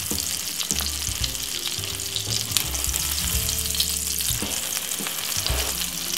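An egg frying in hot oil in a non-stick pan, sizzling steadily with many small pops and crackles. Scrapes and taps of a plastic slotted spatula come through as the egg is folded and pressed.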